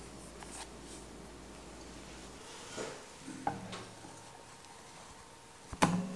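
Metal fluted tart tin being handled and set down on a metal wire cooling rack: a few soft knocks and a cloth rustle, then one sharp clank near the end as the tin lands on the rack.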